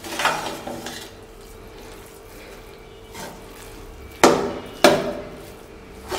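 Metal spatula stirring and mashing boiled potatoes in a stainless steel pot, scraping the pot, with two sharp clanks of metal on metal about half a second apart a little past the middle.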